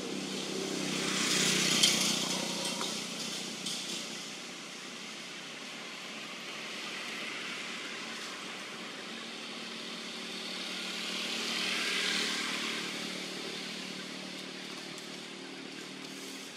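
Road vehicles passing by, two in turn, each rising and fading over a few seconds, with a low engine hum under a hiss: the first, about two seconds in, is the louder; the second comes around twelve seconds in.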